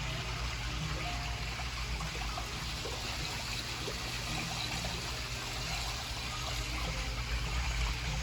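Basement sewage ejector pump running with a steady low hum while water flows and trickles through it, pumping out the test water.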